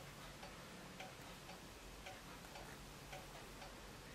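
Faint, regular ticking, about two ticks a second, over quiet room tone.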